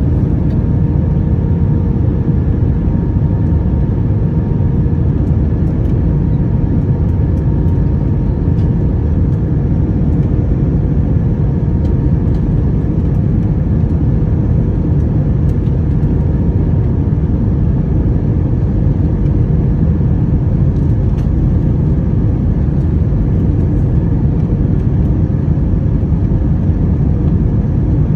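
Steady cabin noise inside an Airbus A321-200 airliner: a constant deep rumble of engines and airflow with a faint even hum above it.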